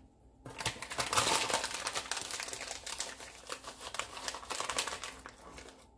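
Plastic bag of whey protein powder crinkling as it is handled and opened. The crackling starts about half a second in and fades out near the end.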